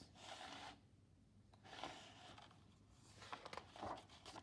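Near silence with a few faint, short rustles of a paper picture book being handled.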